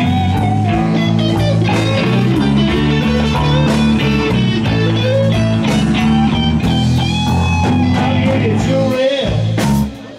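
Live blues-rock band playing an instrumental passage: electric guitars and electric bass over a drum kit, with a lead guitar line bending notes on top. The music drops away briefly near the end.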